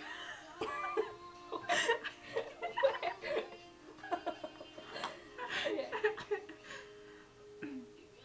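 Women laughing in several bursts over background music.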